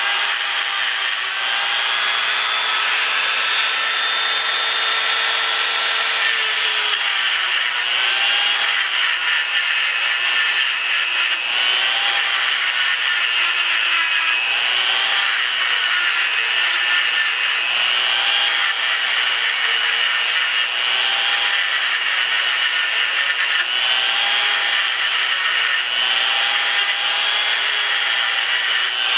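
Dremel rotary tool with a small grinding stone running at high speed, grinding down the heads of the old rivets on a tractor brake shoe to free the worn lining. A steady high whine whose pitch dips and recovers every couple of seconds.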